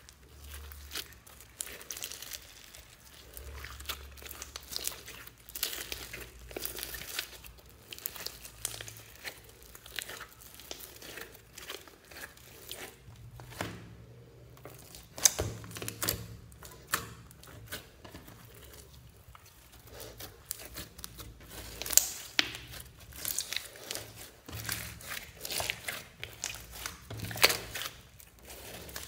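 Glittery slime mixed with clay being kneaded and stretched by hand: a dense run of sticky crackles and small pops, with a few sharper pops standing out.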